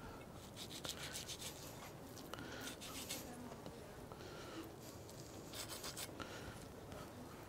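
Faint scraping and rubbing as a knife cuts hard fat from a raw beef brisket on a wooden cutting board and hands peel the fat away, in short scratchy bursts.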